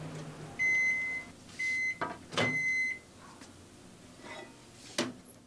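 A low humming stops, then three high electronic beeps sound, a long one, a short one and another long one, with a few sharp clicks during and after them.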